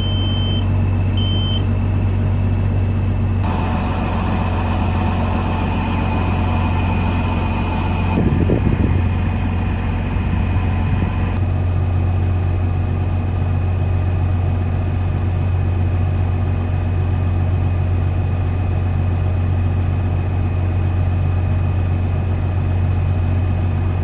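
Semi truck's diesel engine idling steadily, heard from inside the cab, with a constant deep hum and a faint high whine. Two short high beeps sound right at the start, and a layer of hiss rises from about three seconds in and drops away by about eleven seconds.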